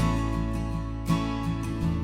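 Gentle instrumental music: a strummed acoustic guitar over a held bass, with a new chord about once a second.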